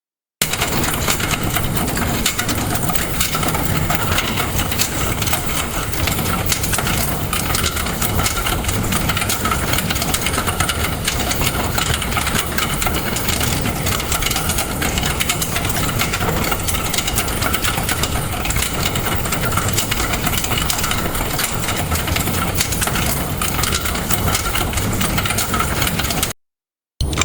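AI-generated sound effect from the Stable Audio Open model: a dense, grainy, engine-like rumble and clatter with a faint steady tone, starting abruptly and holding steady. It cuts off shortly before the end, and another generated sound starts right after.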